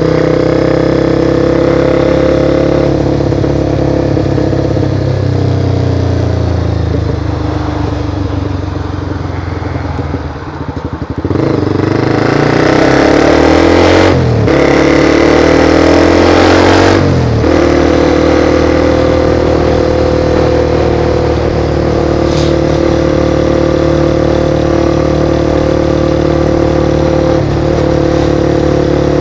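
Sport motorcycle engine heard from on the bike while riding. It holds a steady pitch, then eases off with the pitch falling in the first third. Near the middle it accelerates hard, with two quick breaks in the pitch that sound like gear changes, before settling back to a steady cruise.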